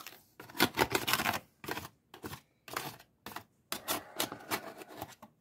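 Aluminium foil pan crinkling and scraping as it is tipped over a canning funnel, with chicken pieces clattering through into a glass mason jar: a quick, irregular run of crackles and scrapes with short pauses.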